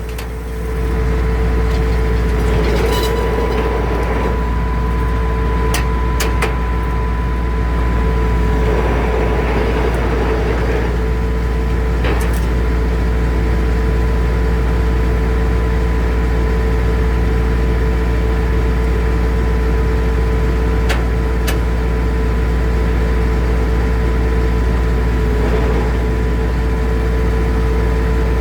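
Circular sawmill running steadily: a deep, even machine hum with a steady higher tone over it, some brief swells in the noise and a few sharp ticks.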